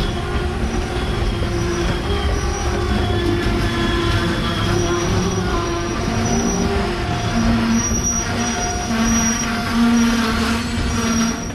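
A CN freight train rolling steadily, with steel wheels squealing in short, overlapping tones over a continuous low rumble of the cars.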